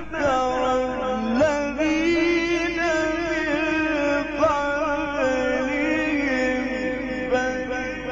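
Male Quran reciter in the Egyptian mujawwad style chanting one long melismatic phrase, the voice holding and turning each note with wavering ornaments.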